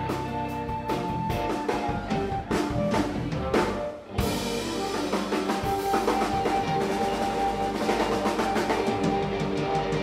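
Background music with a drum kit keeping a steady beat over pitched instruments. It breaks off briefly about four seconds in, then comes back fuller.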